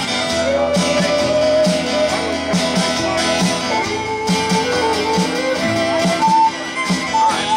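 A live country swing band playing an instrumental break: a fiddle bows the lead melody, with sliding notes, over steel guitar and a steady beat from the rhythm section.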